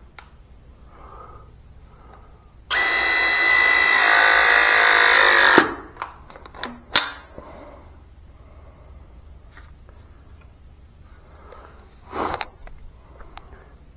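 Battery-powered hydraulic press tool crimping a press fitting onto a gas pipe: the motor starts suddenly and runs with a steady whine for about three seconds, then winds down. A sharp click follows about a second later, and a lighter knock near the end.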